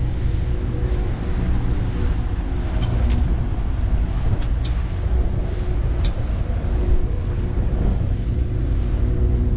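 Twin V4 two-stroke outboard motors running steadily with the boat under way at speed, with wind rushing past the microphone.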